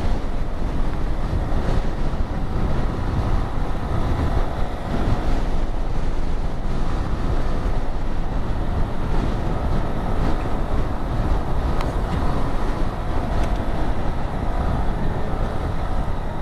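Wind rushing over the helmet-mounted microphone while riding a Honda Pop 110i, with the scooter's small single-cylinder engine running steadily underneath.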